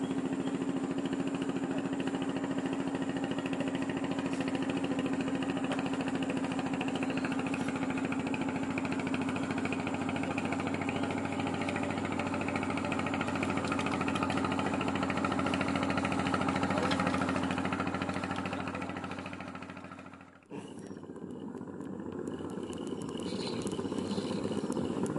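A small engine running steadily at one unchanging pitch, fading out about twenty seconds in. After an abrupt break, a quieter steady noise without the engine tone remains.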